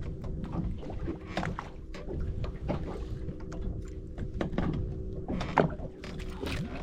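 Boat engine idling, a steady hum over low rumble, with a few scattered knocks and thuds on board.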